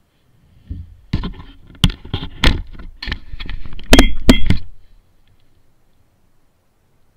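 A run of irregular knocks and thumps against a plastic kayak hull while a pike is handled over the side, the heaviest blows coming about two and four seconds in; the sound stops abruptly near the end.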